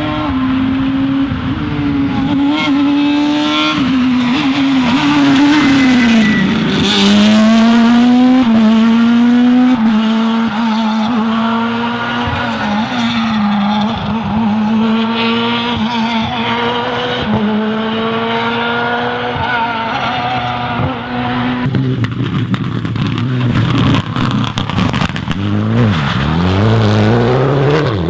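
Rally car engines running hard on a special stage, revving up and dropping back again and again through gear changes. In the last few seconds a car accelerates hard, its engine note rising steeply.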